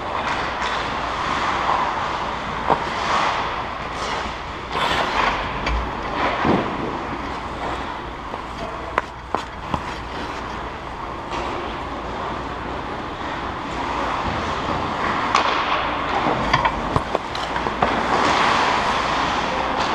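Ice hockey skates scraping and carving the ice in a continuous hiss that swells and fades, with scattered sharp clacks of sticks and puck on the ice, several in quick succession near the end.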